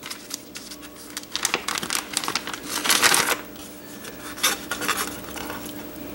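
Plastic zip-top freezer bag crinkling and rustling as handfuls of cooked green beans are slid into it, with small irregular clicks; the loudest rustle comes about three seconds in.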